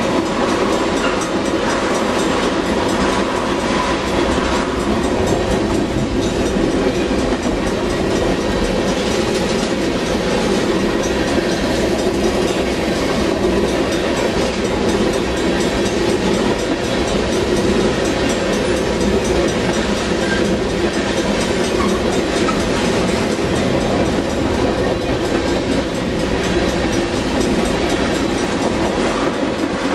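Freight train of tank cars rolling past close by: a loud, steady noise of steel wheels running on the rails.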